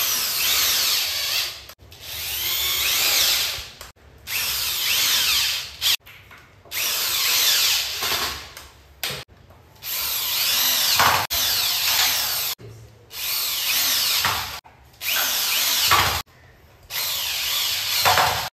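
Corded electric drill driving screws through steel hinges into plywood, run in about nine short bursts of one to two seconds each with brief pauses between.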